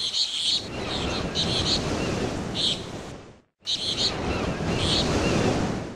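Steady rush of wind and lapping water, with short high chirps about every second. The sound cuts out for a moment about halfway through.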